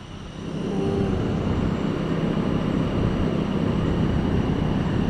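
A steady mechanical rumble that swells up over about the first second and then holds steady.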